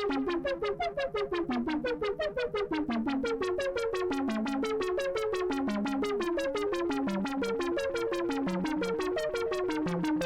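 Eurorack modular synthesizer playing a fast sequenced run of short pitched notes, each shaped by the Frequency Central CEMvelope ADSR envelope generator. The notes are clipped and separated at first, then ring on longer and brighter from about three seconds in as the envelope settings change.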